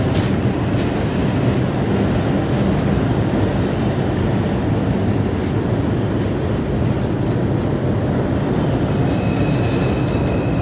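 R142 subway cars rolling slowly past at close range, moving at reduced speed through a track work zone: a steady, dense low rumble of wheels on rail. A few sharp clicks come near the start, and a thin, faint squeal comes in near the end.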